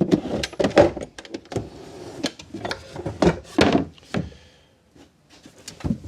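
Rummaging among old hand planes and their parts on a workbench: irregular clicks, knocks and clunks. It falls quiet for about a second and a half near the end before one more knock.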